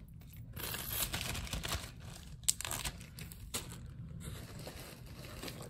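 Plastic bag crinkling and rustling in irregular bursts as it is handled, with one sharp click about two and a half seconds in.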